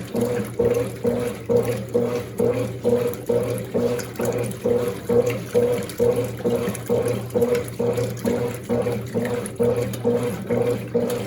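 Small washing machine agitating a load of clothes in water: the motor hums in a quick, even back-and-forth rhythm of about two to three strokes a second, with water sloshing.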